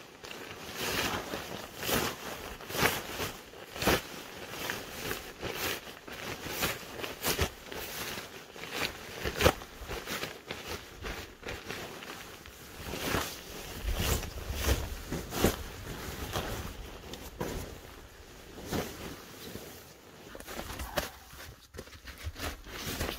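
Rustling and swishing of a nylon bivy bag and sleeping bag being handled and shaken out, in irregular strokes, with crunching steps in snow.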